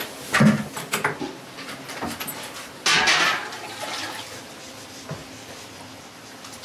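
Stainless steel wash pail clanking and knocking as it is handled, with a short splash of water about three seconds in, as the cow's udder is washed before milking.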